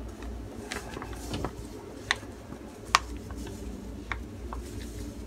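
Plastic bag of rice flour crinkling in a few sharp, separate crackles as the flour is poured out into a bowl, over a faint steady low hum.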